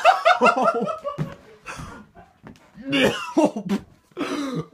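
Children coughing and laughing in short, quickly repeated bursts, set off by a foul smell.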